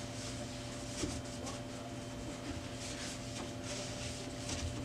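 Faint, irregular soft swishes of a lint-free cloth rubbing across the glass of an Epson XP-640 scanner bed, with a steady low hum underneath.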